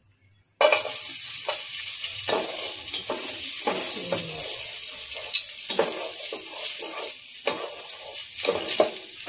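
Sliced garlic sizzling in hot oil in a metal pot, stirred with a slotted turner that scrapes the pot bottom in short strokes. The sizzle starts suddenly about half a second in, as the garlic hits the oil.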